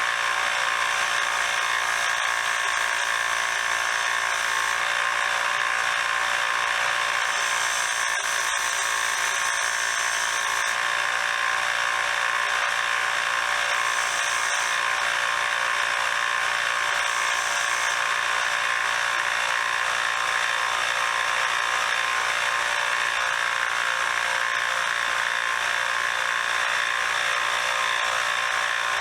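A small electric power tool running steadily, a high-speed motor with a constant whine, used to clean up old screwdrivers. Brief brighter hissing passes come in now and then as the work is pressed against it.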